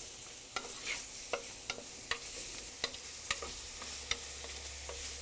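Leeks and chorizo sizzling in oil in a clay flameware pot, with a wooden spoon knocking against the pot as they are stirred, in irregular clicks about two or three a second.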